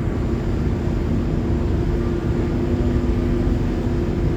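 Steady engine drone with a constant low hum, under a heavy rumble of wind buffeting the microphone.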